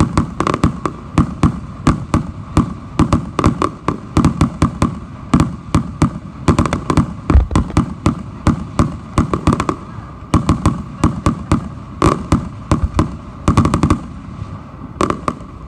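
Fireworks going off in a fast, irregular string of sharp bangs and cracks, several a second, with quick clusters of bangs now and then.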